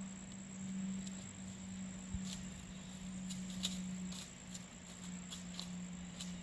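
Quiet outdoor ambience: a steady high-pitched insect trill over a low steady hum, with a few faint scattered ticks.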